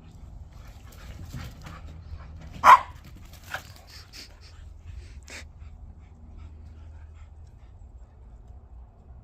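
Dogs panting during a tense meeting between several dogs, with one sharp bark a little under three seconds in and two shorter, fainter yelps after it.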